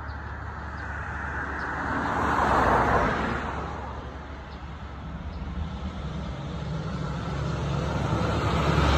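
Road traffic: a car passes by, its tyre and engine noise swelling to a peak about three seconds in and fading, then another vehicle approaches, growing louder near the end, over a steady low hum.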